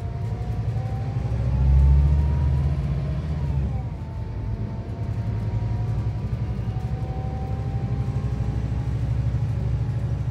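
Scania K360 coach's five-cylinder diesel and driveline heard from inside the passenger cabin while under way: a heavy low rumble that swells about two seconds in, with a thin whine whose pitch drops about four seconds in and then climbs slowly again.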